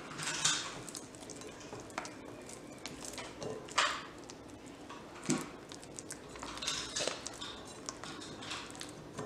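Wet hands working sticky sourdough dough in a glass mixing bowl, tucking and shaping it during a stretch and fold: soft wet handling noises and rubbing against the glass, with sharper slaps or knocks about four and five seconds in.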